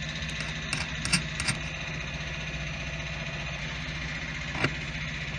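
Steady drone of roadworks machinery engines running, with a few light clicks about a second in and one more near the end.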